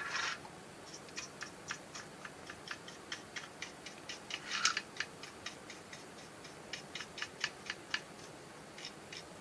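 Flat paintbrush dabbing and stroking ink onto the side of a plastic model boxcar: a run of light, quick ticks, about four a second, with one longer brush stroke about halfway and a short pause near the end.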